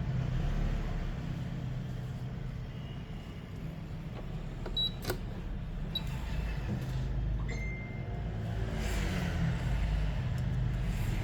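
Steady low rumble of background road traffic, with a couple of small sharp clicks about five and six seconds in and a brief tone a little later.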